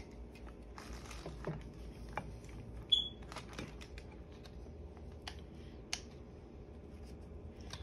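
Faint clicks and light taps of a pistol magazine being handled, with one short high chirp about three seconds in.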